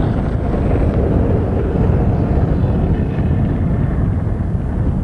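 Wind buffeting the microphone: a loud, steady, fluttering rumble.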